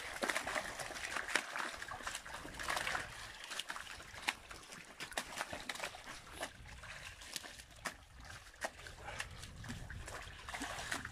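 Live carp flopping on a wet tarp and in shallow water: scattered wet slaps and splashes, with water trickling.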